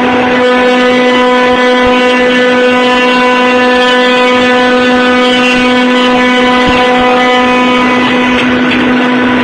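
Spindle of a Biesse Rover 4.40 CNC router running at constant speed, giving a steady, loud whine.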